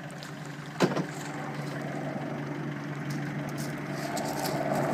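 Westland Sea King helicopter flying past at a distance: a steady low drone with a clear tone, growing gradually louder as it approaches. A single sharp knock about a second in.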